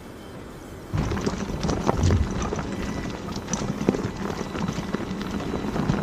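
Electric unicycle riding fast over a rocky dirt trail: a dense run of irregular knocks, rattles and crunches from the tyre on stones, over a steady low hum. It sets in suddenly about a second in and stops abruptly at the end.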